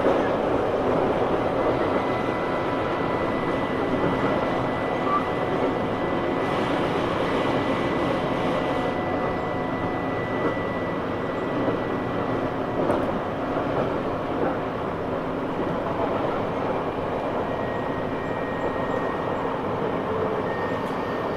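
Tobu 9000 series electric train heard from inside the car while running: a steady rumble of wheels on track with faint, steady whining tones that slowly fade.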